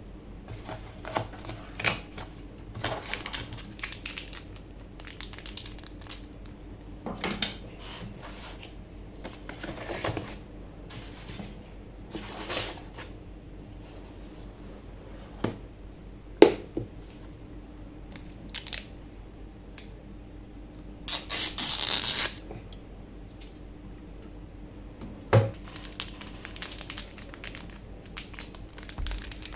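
Packaging being unpacked by hand: scattered rustling, crinkling and tearing of paper and plastic, with light clicks and knocks. There is a sharp knock about sixteen seconds in and a longer, louder rustle around twenty-one seconds.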